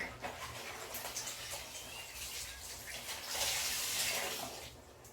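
Laundry being washed by hand: wet clothes rubbed and swished in water, with a louder stretch of scrubbing about three and a half seconds in before it dies down.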